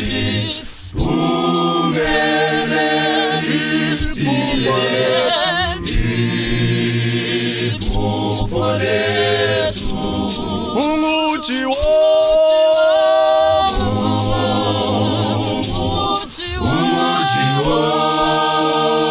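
Church choir of men's and women's voices singing a hymn a cappella in harmony, with short breaks between phrases about a second in and near the end.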